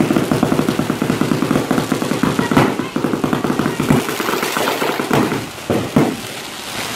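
Firecrackers and bottle rockets going off in a rapid barrage, a dense machine-gun-like string of bangs. After about four seconds it thins out to a few separate bangs.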